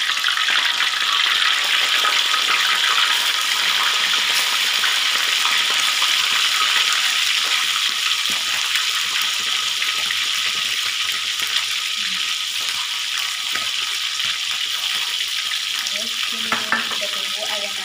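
Boiled chicken pieces frying in hot oil in a wok: a loud, steady sizzling hiss that fades a little towards the end.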